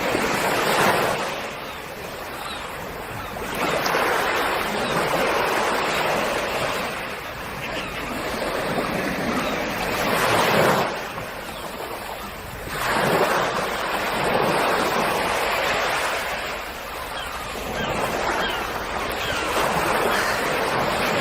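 Sea waves breaking and washing up the shore, the surf swelling and ebbing every few seconds.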